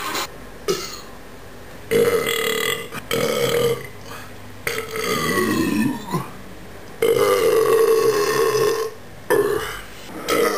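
A man burping again and again after drinking: about five long belches one after another, each starting and stopping abruptly, the longest nearly two seconds.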